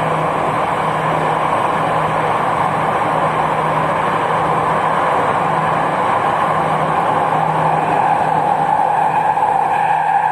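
Jakarta MRT electric train running, heard inside the passenger car: a steady rush of wheel and tunnel noise with a low, even hum underneath.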